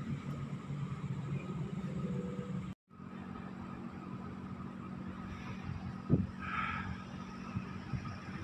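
Steady rumble of road traffic. The sound drops out completely for a moment a little under three seconds in. About six seconds in there is a single knock, then a brief higher sound.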